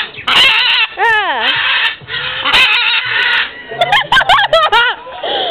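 Parrots screaming loudly: a run of harsh, raspy screeches broken by arching, wavering whistled calls that rise and fall in pitch.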